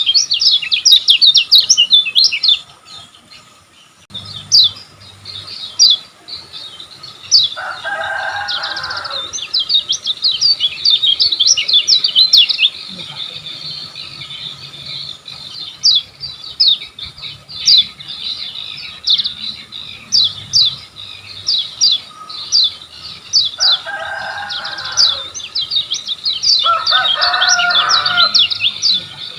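Kecial kuning singing a fast, rapid-fire chattering song of quick high chirps, pausing briefly about three seconds in. Three times a lower, harsher call cuts across it.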